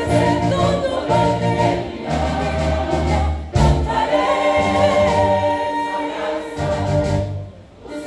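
Choir singing a gospel song with musical accompaniment, in long held notes over a steady bass, dropping briefly near the end.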